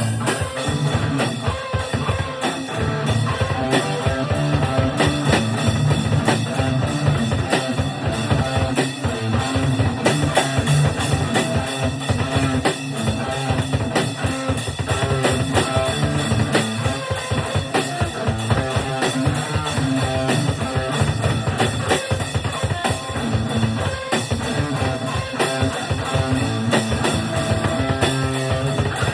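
Band music with a drum kit and electric guitar playing a steady beat, in a rock style.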